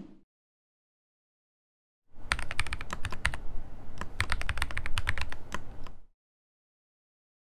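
Computer keyboard typing sound effect: a quick run of key clicks that starts about two seconds in, lasts about four seconds and stops abruptly.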